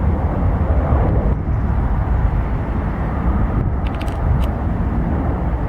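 Steady low rumble of airport outdoor noise, with a few faint clicks about four seconds in.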